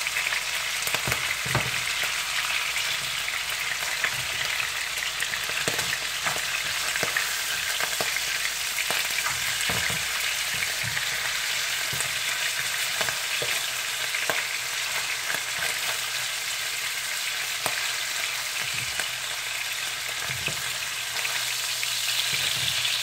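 Salmon pieces frying in hot oil in a frying pan: a steady sizzle with scattered sharp pops of spitting oil as the pieces are turned over.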